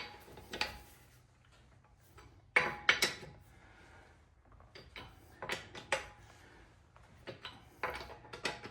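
Metal clinks and clanks of a lug wrench working on a car wheel's lug nuts as the wheel is snugged up, in several short bursts of sharp strikes.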